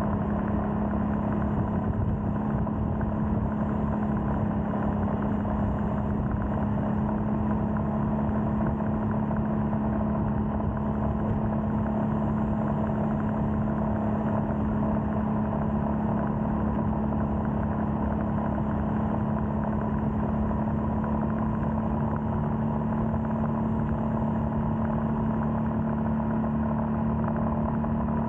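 Royal Enfield Scram 411's 411 cc single-cylinder engine running under way at a steady cruising speed, its note holding a steady pitch.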